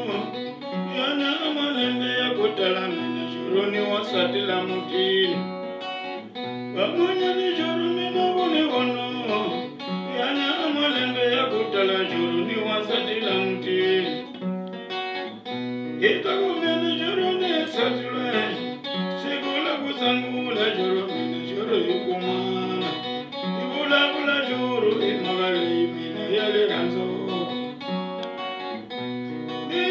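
Acoustic guitar played solo, a continuous picked and strummed accompaniment over a regularly repeating bass line.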